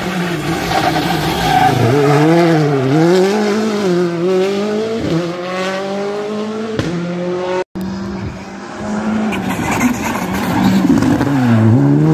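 Rally car engines at high revs through hairpins. The revs fall and climb again several times, with a long rising pull about halfway. A brief drop-out follows, then a second car's engine dips low near the end and climbs again as it pulls away.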